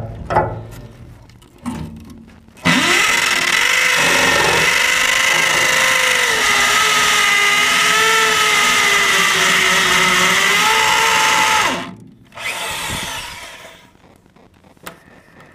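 Hammer drill boring into the concrete floor through a safe's mounting hole: a few knocks, then one long run of about nine seconds with a steady motor whine that sags slightly in pitch, then a short second run.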